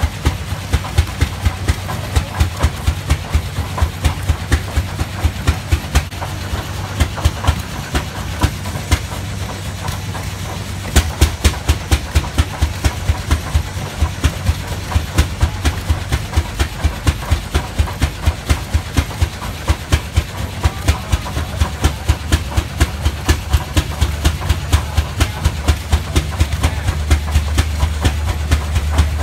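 Rumely OilPull tractor engines idling, their slow exhaust chuffing in a steady beat of about three to four pops a second, with the beats of more than one engine overlapping over a low hum.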